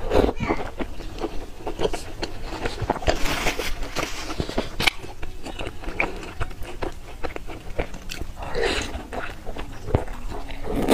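Close-up eating sounds: biting into and chewing youtiao (fried dough sticks) soaked in soy milk, a run of many small wet clicks and smacks.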